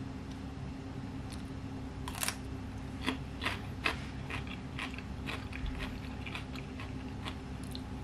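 Eating beetroot salad from a ceramic bowl with a fork: an irregular string of small clicks and crunches of fork and chewing, starting about two seconds in, over a low steady room hum.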